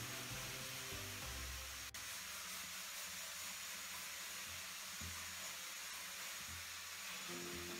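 Quiet background music over a steady hiss. The music drops out after about two seconds and returns near the end.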